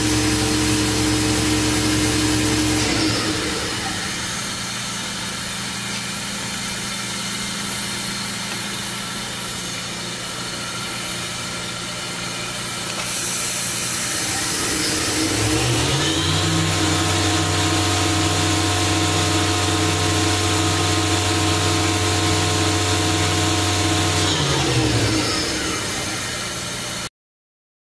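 Fadal 4020HT vertical machining center's spindle running at speed, then winding down to a stop about three seconds in. It spins up again with a rising whine roughly halfway through, runs steadily, and winds down near the end. Under it all is the machine's steady background hum.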